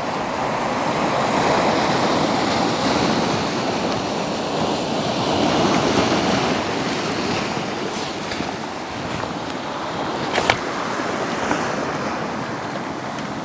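Sea waves breaking and washing over a boulder beach, a steady rushing surf that swells and eases. A single sharp click comes about ten and a half seconds in.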